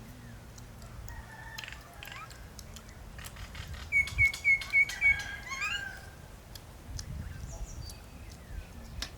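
A bird calling: a quick run of five short, high chirps about halfway through, followed by a couple of rising notes, with scattered faint clicks in the background.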